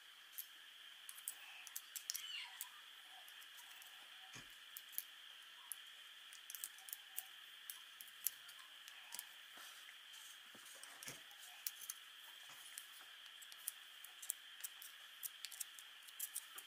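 Faint, irregular clicks and scrapes of a small screwdriver tip prying at the slots and tabs of a small AC motor's thin steel casing, with two soft knocks as the motor is handled.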